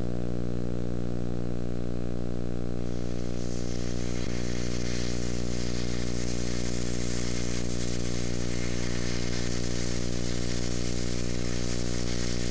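A steady, unchanging low droning hum with a hiss over it; the hiss grows stronger about three seconds in.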